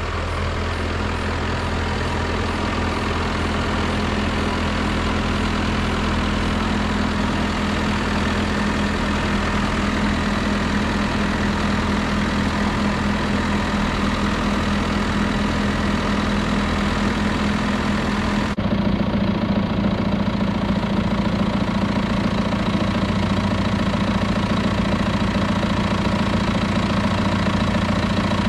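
A heavy engine running steadily at idle. About eighteen seconds in the sound changes abruptly, with a stronger low hum and slightly louder.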